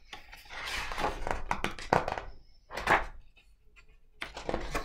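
Hardcover picture book being handled and a page turned: paper rustling and a few sharp knocks, the loudest about three seconds in.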